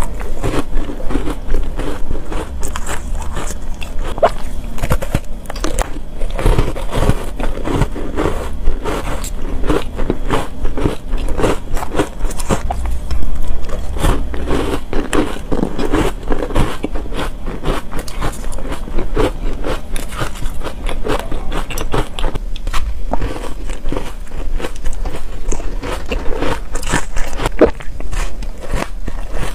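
Close-up crunching and chewing of ice coated in green matcha powder: quick, crisp crunches one after another without a break as the ice is bitten and ground between the teeth.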